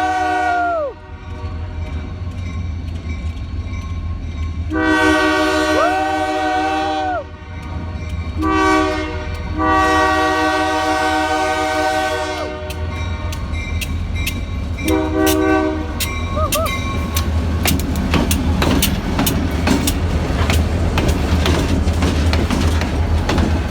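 Kiamichi Railroad 202 locomotive's air horn sounding a series of blasts: one ending about a second in, then a long, a short, a long and a short. A steady low diesel rumble runs underneath. In the last third the horn stops and the clickety-clack of train wheels knocking over rail joints takes over as the cars roll past.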